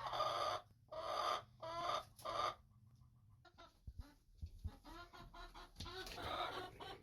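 Laying hens on their nests growling: three drawn-out calls in the first two and a half seconds, then softer scattered clucks. This is the warning a hen gives when someone comes near her nest.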